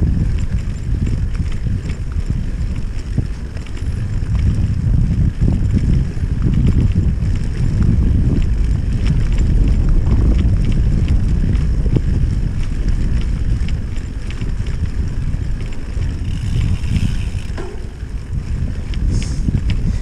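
Wind noise on the microphone over the low rumble of a mountain bike's tyres on bumpy grass, with frequent small clicks and rattles from the bike.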